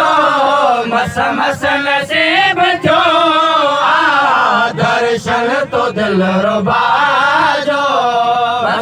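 Several men singing a Sindhi song together into microphones, holding long, wavering notes.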